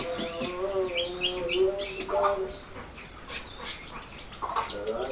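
A konin songbird singing hard in rapid chirps and short trills, over a steady, held low humming tone that drops out midway and returns near the end.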